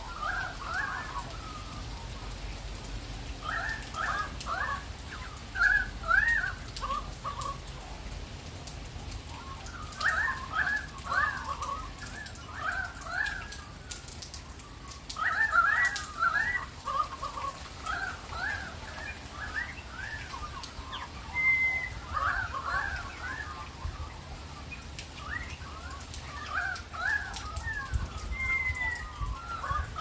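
Australian magpies carolling: bursts of quick, warbling, fluting notes that rise and fall, with short pauses between phrases and now and then a single higher slurred whistle.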